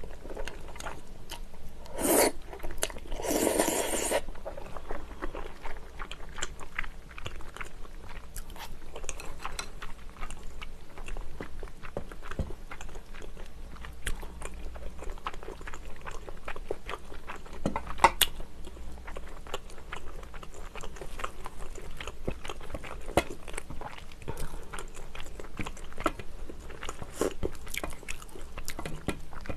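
Close-miked eating of kimchi stew with glass noodles: a couple of noodle slurps in the first few seconds, then soft wet chewing with many small clicks.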